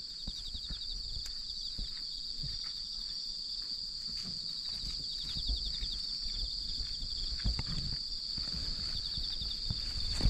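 Cats eating, with irregular soft crunches and clicks, over a steady chorus of crickets trilling in fast pulses.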